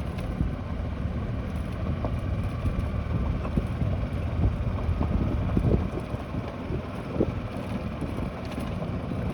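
Golf cart driving along, a steady low rumble with scattered knocks and rattles, and wind buffeting the microphone.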